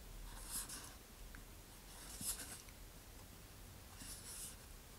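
Faint, scratchy rubbing of a fingertip around the edge of a bulkhead disc inside a model-rocket coupler tube as a glue fillet is pressed in, heard three times about two seconds apart.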